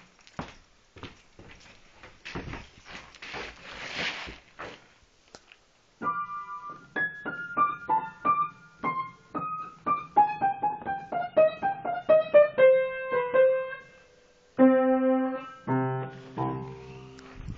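Rustling and scattered clicks for about the first six seconds, then piano music: a run of single notes stepping downward, a short pause, and a few low chords near the end.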